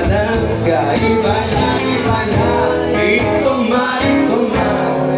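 Live song: a man singing with strummed acoustic guitar accompaniment, amplified through a microphone and PA.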